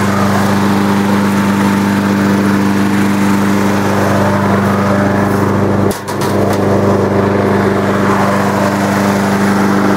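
Small lawn mower engine running steadily at a constant speed, with a brief knock and dip in level about six seconds in.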